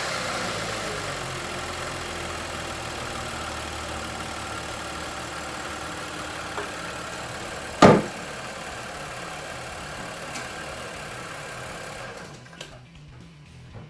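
2015 Audi Q7's 3.0-litre V6 engine idling steadily just after being started following an oil change, easing slightly in level. A single loud thump about eight seconds in, and the engine shuts off about twelve seconds in.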